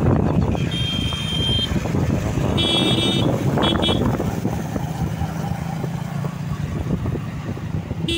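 Motorcycle running as it is ridden along a street, with steady engine, wind and road noise. Vehicle horns beep three times in the first four seconds: one toot of about a second, then a shorter one and a brief one.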